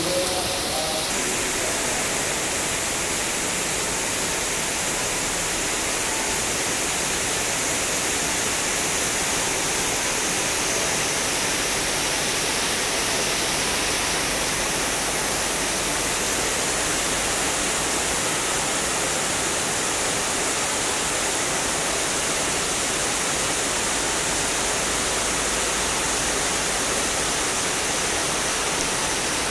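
Heavy tropical downpour falling steadily: a dense, even hiss of rain that does not let up.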